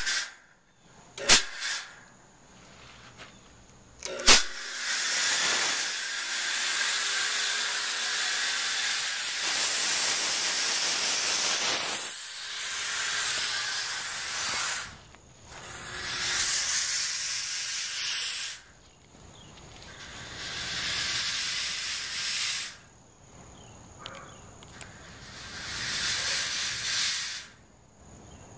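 Chauvet Hurricane 1600 fog machine blasting fog, with a loud hiss of fog jetting from its nozzle. The first burst lasts about ten seconds, then three shorter bursts of a few seconds each follow with pauses between them. A few sharp knocks come just before the first burst.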